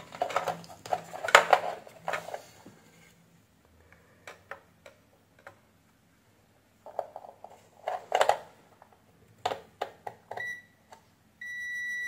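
Digital multimeter's continuity beeper sounding a steady high tone, a short blip about ten seconds in and then held through the last second, as the probes find continuity between a keypad row pin and the controller pin. Before it, light clicks and scrapes of the probe tips on the circuit boards.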